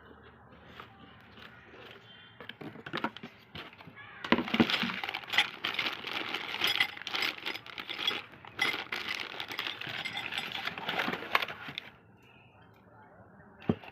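Irregular clattering and clinking of hard objects being handled, a few scattered knocks at first, then a dense run of clicks from about four seconds in that stops at about twelve seconds.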